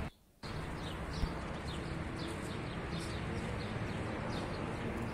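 Outdoor ambience: birds chirping, a run of short falling chirps, over a steady background hiss, after a brief silent gap at the start.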